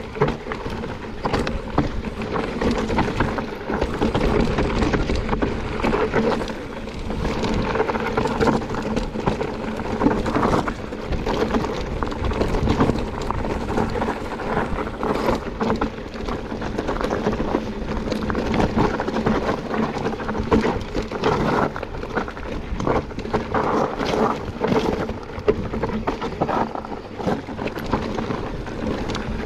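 Mountain bike ridden downhill on a trail: a steady rumble of tyres and rattling bike, broken by frequent sharp knocks.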